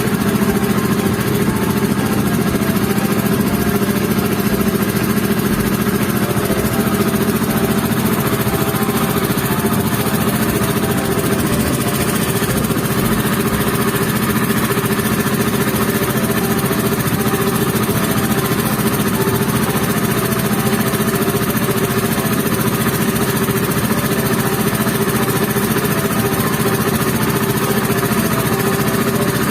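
Motorboat engine running steadily at an even pitch.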